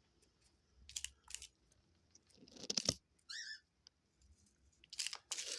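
A pet dove pecking through its seed and flicking it out: quick sharp pecks and rattling, scattering seed, with a short high warbling squeak about three and a half seconds in.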